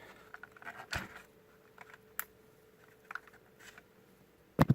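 Light plastic clicks and taps from a DJI Phantom 3 Standard drone and its battery being handled, with a sharper knock near the end.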